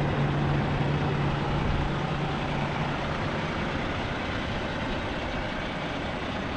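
Semi truck's diesel engine running steadily, with a low hum that drops away after about two and a half seconds.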